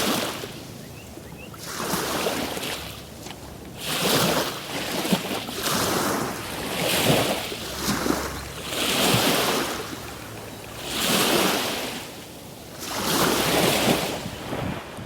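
Small wind-driven waves lapping and splashing in a steady rhythm, one wash swelling and falling away about every two seconds.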